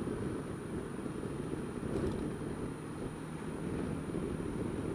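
Honda Dio scooter on the move: a steady low rumble of wind buffeting the mounted camera's microphone, mixed with engine and road noise.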